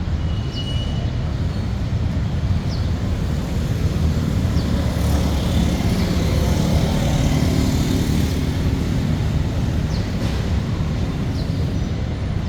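Traffic noise: a steady low rumble that swells as a vehicle passes around the middle, with a few faint short high chirps.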